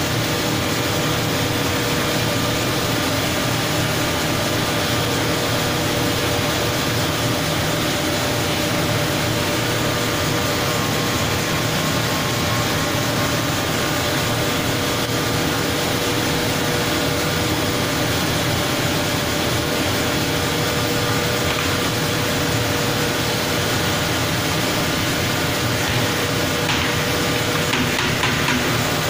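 Fish-processing machinery running: a steady, even noise with a constant hum, and a faint clatter near the end.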